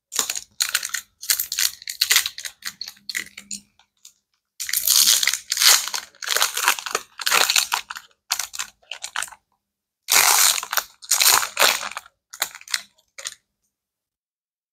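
A Disney Lorcana booster pack's foil wrapper crinkling as it is torn open and pulled apart, in a string of crackly bursts that stop about thirteen seconds in.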